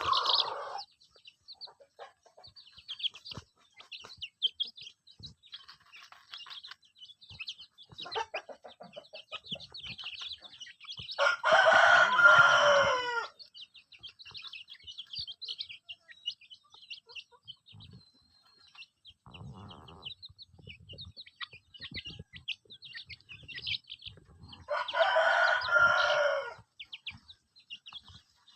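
A rooster crows twice, each crow about two seconds long, the first about eleven seconds in and the second near the end, over a steady high cheeping of young chickens.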